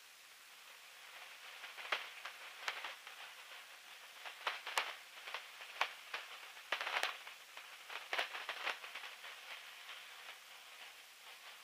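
Steady hiss broken by irregular bursts of crackle, thickest from about two to nine seconds in, with no engine note heard: wind buffeting the microphone in the open cockpit of a biplane in flight.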